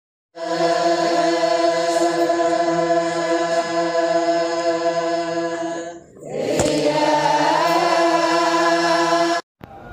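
Intro music: a held choral chord. About six seconds in it drops away under a brief whoosh, then comes back and stops abruptly near the end.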